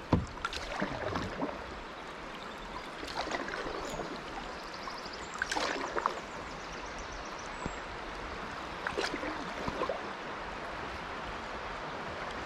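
River water running over a shallow stretch, with irregular splashes and knocks from a canoe and its paddles in the shallows. A sharp knock right at the start is the loudest sound.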